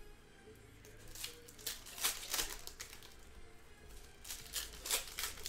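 Trading-card pack wrappers crinkling and tearing open by hand, in several short bursts of rustling.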